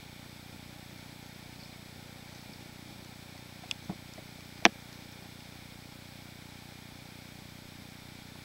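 A few short sharp clicks or snaps just under four to five seconds in, the last one the loudest, over a steady low background rumble.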